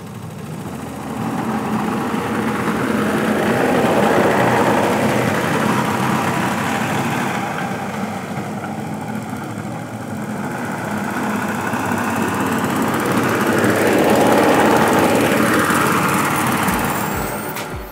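Suffolk Super Punch cylinder lawnmower running as it is pushed across the lawn, its engine and spinning cutting cylinder. It swells louder twice as it passes close and fades back in between.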